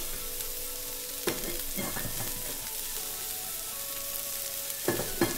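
Brussels sprouts frying in a pan with a steady sizzle. A utensil knocks against the cookware a few times: about a second in, again soon after, and twice more loudly near the end.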